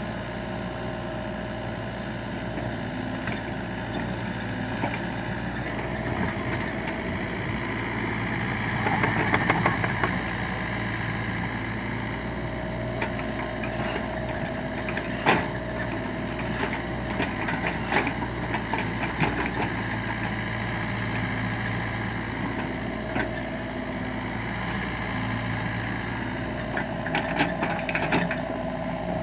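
LiuGong mini excavator's diesel engine running steadily while it works, swelling louder for a moment about nine seconds in, with scattered sharp knocks.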